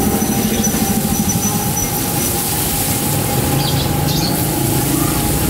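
Battered tempe slices frying in a wok of hot oil, a steady sizzle, with a thin steady tone running underneath.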